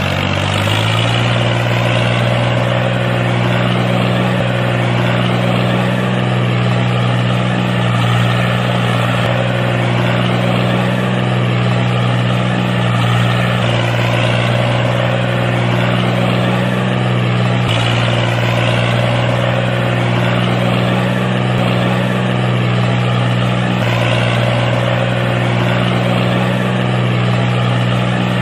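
Tractor engine running steadily as the tractor drives along, a low even drone that holds one pitch throughout.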